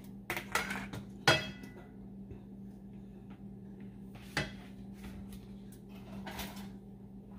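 A few scattered clinks and knocks of kitchen utensils and containers, the sharpest a short ringing clink about a second in, over a steady low hum.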